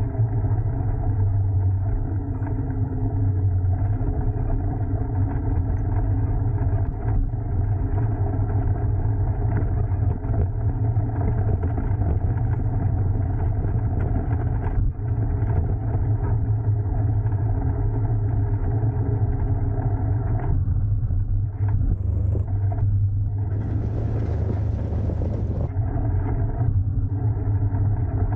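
A motor vehicle running steadily, a constant low engine rumble with road noise, and a short burst of hiss about three-quarters of the way through.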